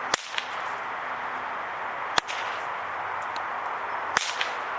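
Bullwhip cracking three times, about two seconds apart, in a slow even rhythm, each crack a single sharp snap.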